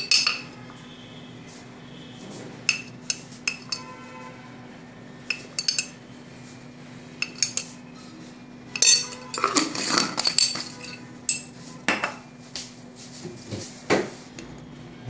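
A spoon clinking and tapping against a glass spice jar and the plate as chilli powder is spooned onto raw chicken. The taps come scattered, with a busier run about nine to ten seconds in, over a faint steady hum.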